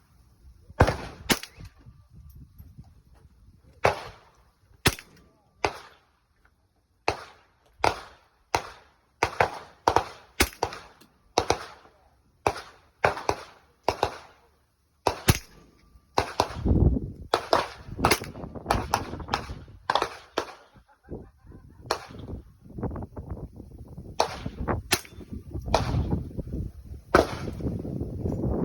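Winchester Wildcat .22 LR semi-automatic rifle firing a long string of sharp shots, about thirty, at uneven spacing with several in quick succession. A low rumbling noise joins under the shots about halfway through.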